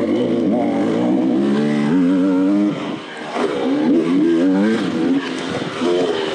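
Off-road racing motorcycle engine under hard riding, its pitch rising and falling with the throttle, easing off briefly about three seconds in before climbing again.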